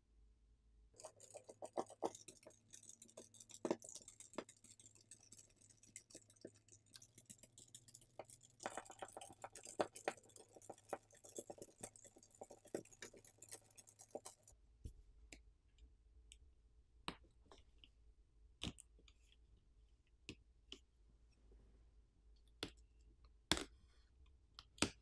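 Faint clicking and scraping of a small T5 Torx screwdriver turning out the screws that hold a smartphone's plastic internal covers, continuous for about the first fourteen seconds. After that, only scattered single clicks and taps as the plastic cover is handled and pried with a plastic pick.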